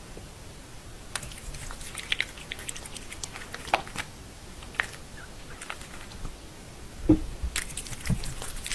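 An animal chewing food: irregular wet clicks and crunches.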